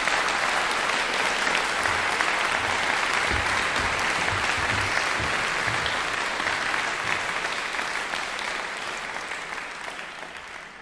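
Audience applauding steadily, the clapping thinning and dying away near the end.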